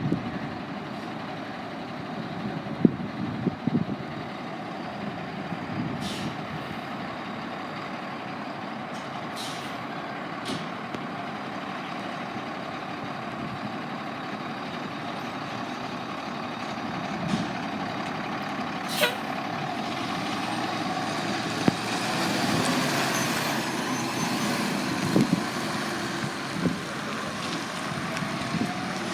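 Heavy truck engine running steadily, with a few short sharp hisses; it grows louder in the last third.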